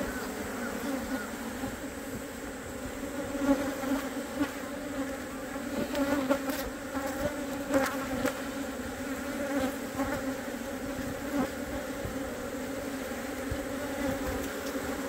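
A mass of Korean native honeybees (Asian honeybees) buzzing around an opened wooden box hive, a steady, slightly wavering hum. The colony is stirred up and defensive, stinging after being disturbed. A few faint knocks come through in the middle.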